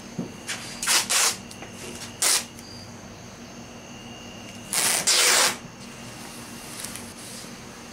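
Painter's masking tape being pulled off its roll in short rips, four in all, the longest about five seconds in, over a faint steady hum.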